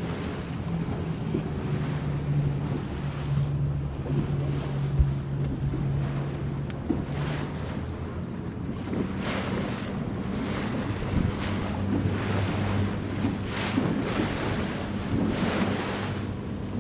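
Wind buffeting the microphone, gusting harder in the second half, over water lapping and splashing against the hull of an inflatable motor tender. The tender's engine runs low and steady underneath, its note dropping to a lower pitch about seven seconds in.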